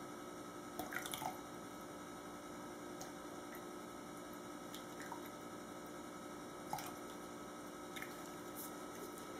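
Fragrance oil being poured from a small glass cup into plastic pitchers of soap batter: a few faint taps and drips over a steady faint hum.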